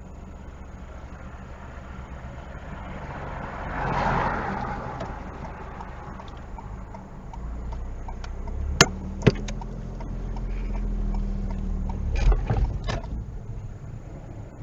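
Car driving along, a steady low road and engine rumble, with a swell of noise about four seconds in like a vehicle passing. Two sharp knocks come a half second apart midway, and a few more a few seconds later.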